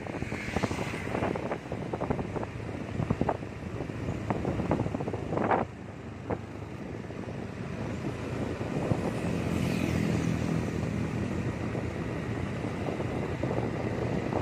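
Wind buffeting the microphone of a camera riding along a road, over steady road and traffic noise. An engine hum stands out for a couple of seconds about nine seconds in.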